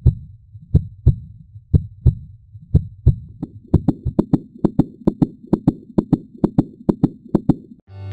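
Heartbeat sound effect: paired low thumps, lub-dub, about one beat a second at first, quickening to about two a second a little under halfway through, then stopping just before the end.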